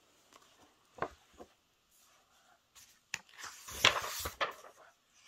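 Paperback puzzle book handled on a wooden desk: two soft taps about a second in, then a click and a burst of page rustling as the pages are flipped through, loudest near the end.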